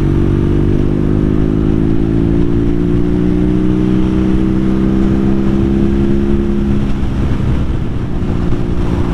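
BMW R nineT's boxer-twin engine pulling the motorcycle up to speed, its note climbing slowly for about seven seconds before it evens out.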